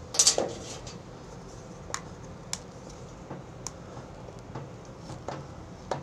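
Small metal parts and tools handled on a workbench: a short clatter about a quarter second in as the cordless drill is set down, then a few sparse, sharp metallic clicks as the loosened bolts and the air box are handled.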